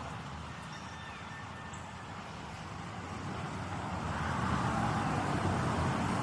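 A car passing on a nearby road: a steady tyre-and-engine rush that swells about four seconds in. A few faint chirps sound early on.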